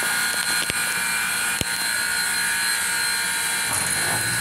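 Steam locomotive No. 400 standing idle, giving off a steady hiss of escaping steam. Two short sharp clicks come in the first two seconds.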